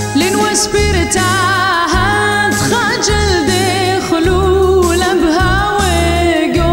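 Music: a solo voice sings a wavering melody with vibrato over an instrumental backing with held bass notes that change about once a second.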